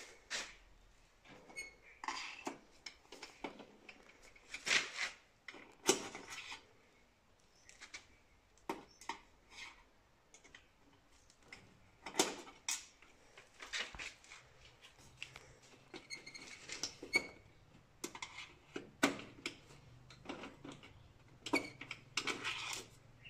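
Irregular clicks, taps and short scrapes of metal and plastic as the scanner covers of an Océ PlotWave 300 wide-format printer are handled and worked with a screwdriver.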